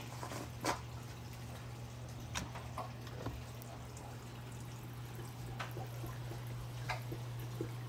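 Reef aquarium's circulation running: water trickling and dripping in the filtration below the tank, with scattered drip clicks over a steady low pump hum.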